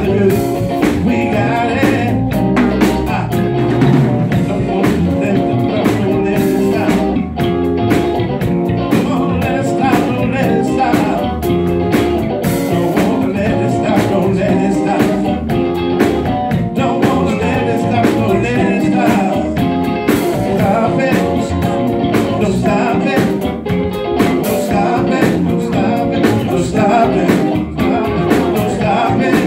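Live band playing an up-tempo blues-rock number, heard through a bar's PA: electric bass guitar and drum kit keep a steady groove, with a man singing over it.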